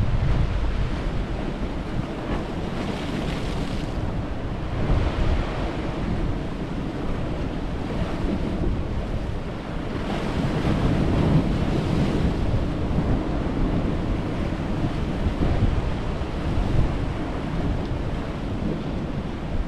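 Sea surf breaking and washing against rocks in repeated surges, with wind buffeting the microphone.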